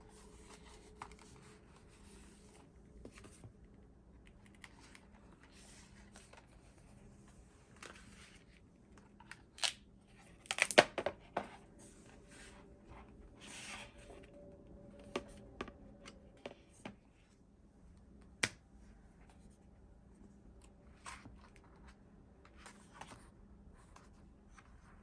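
Hands unpacking a shipment of albums: packaging rustling and tearing with scattered light taps. A busier burst of crinkling and clicks comes a little before halfway, and a single sharp click follows some seconds later.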